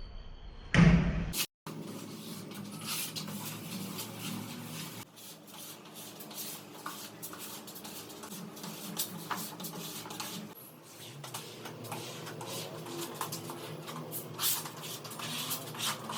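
Scattered knocks, taps and clicks of work in a woodworking shop, with one loud low thump about a second in.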